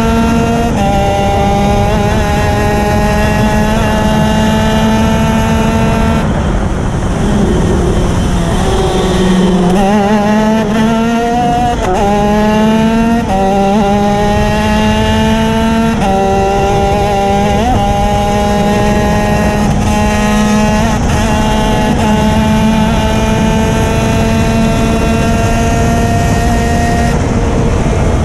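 Racing kart engine run hard at high revs, its pitch climbing slowly for several seconds at a time, then dropping sharply several times before climbing again.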